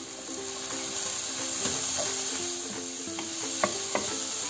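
Onions and peppers frying in oil in a nonstick pan, sizzling steadily while they are stirred with a wooden spoon, with a few sharp taps of the spoon against the pan. Soft background music with held notes plays underneath.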